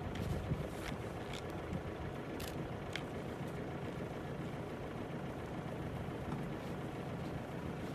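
A steady low engine rumble, as of an idling vehicle, with a few faint short clicks in the first three seconds.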